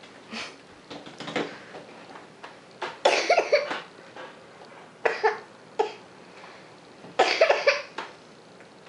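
Coughing in four short, harsh fits a second or two apart, the first and last the longest.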